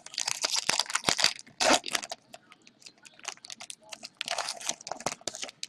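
A trading-card pack's wrapper being torn open and crinkled in the hands, in two spells of crackly rustling: one over the first couple of seconds and another about four seconds in.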